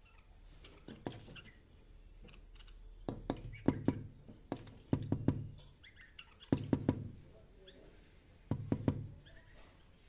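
Quick clusters of sharp taps and knocks on a window pane, three or four at a time, repeating several times.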